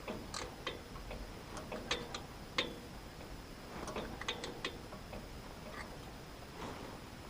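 Hex key clicking and tapping against metal as the spindle's socket-head screws are tightened: a dozen or so irregular sharp metallic clicks, some briefly ringing, the loudest about two seconds in.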